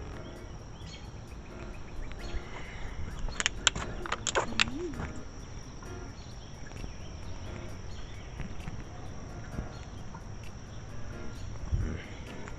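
Insects trilling in a steady high note. A few sharp high chirps cut in about three and a half seconds in.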